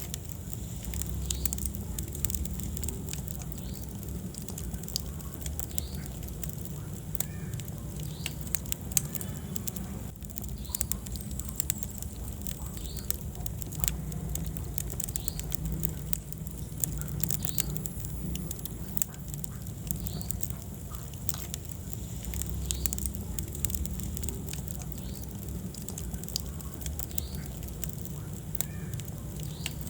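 Wood fire burning in a fireplace: a steady low rumble of flames with frequent sharp crackles and pops throughout.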